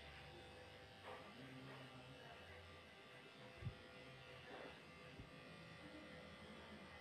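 Electric dog-grooming clippers running quietly with a steady buzz as they shave a Shih Tzu's coat down; a short knock about halfway through.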